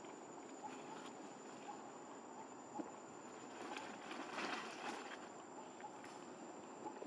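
Faint forest ambience with a steady high insect drone, and a brief spell of scuffling and rustling about halfway through.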